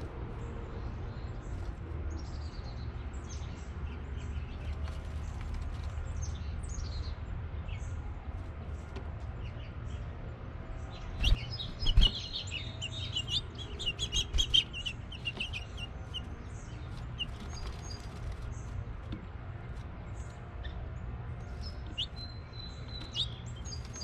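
House finches chirping: short high calls scattered throughout, with a burst of rapid chirping around the middle. Two dull thumps come just before the burst, over a steady low rumble.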